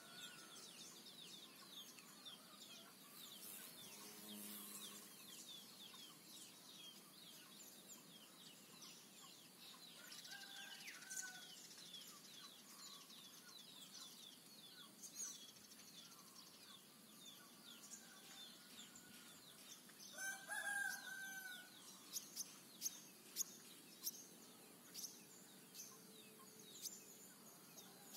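Quiet rural morning ambience: small birds chirping with quick, high, down-slurred notes throughout, a rooster crowing about two-thirds of the way through as the loudest sound, and a few sharp high bird calls near the end.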